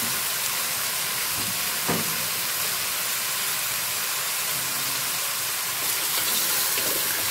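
Chicken pieces sizzling in hot oil in an aluminium pot, a steady hiss, with a single light knock about two seconds in. Near the end a wooden spatula starts scraping and stirring the chicken.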